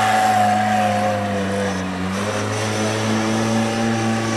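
Formula Offroad buggy's engine running hard as it drives across loose sand. Its pitch dips slightly about a second in, then holds steady.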